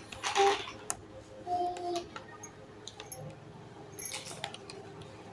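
A voice in the background, in two short bursts within the first two seconds, then light scattered clicks and ticks.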